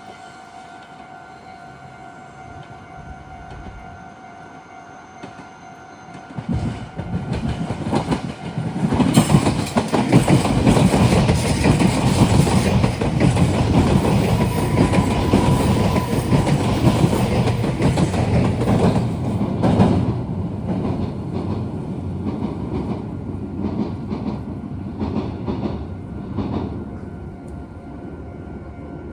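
Meitetsu electric train passing close by at the junction, its running noise and wheel clatter over the points swelling from about six seconds in, loudest in the middle, then easing off. Before it arrives, a steady level-crossing warning signal sounds.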